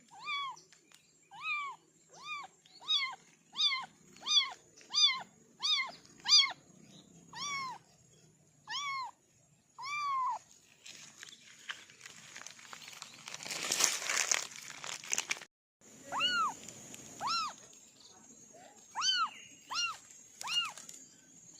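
Kittens mewing: a run of short, high-pitched mews, each rising and falling in pitch, about one every 0.7 s, then a rustling noise for a few seconds before more scattered mews near the end.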